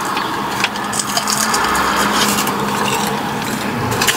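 Eating sounds: chewing fried chicken tenders, with scattered small clicks and rustles from handling a plastic dipping-sauce cup.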